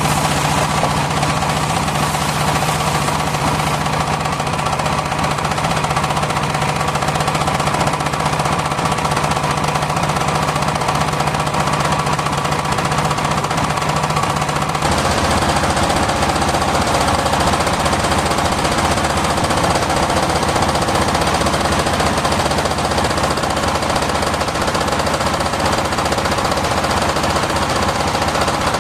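Circular sawmill running: loud, steady machine noise with a rapid pulsing knock, its tone changing abruptly about halfway through.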